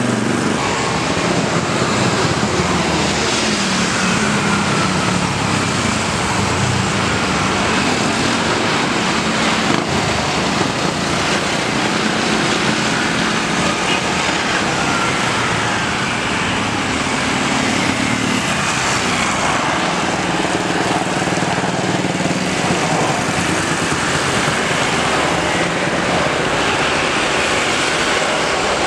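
Boeing 737-400 freighter's CFM56-3 jet engines as the airliner lands and rolls out: a steady rushing jet noise with a faint whine that drifts in pitch.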